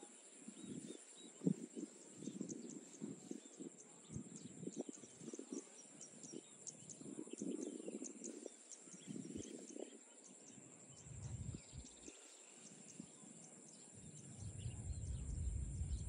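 Faint outdoor field ambience: a steady high-pitched insect drone with scattered short chirps and ticks over it, and a low rumble building near the end.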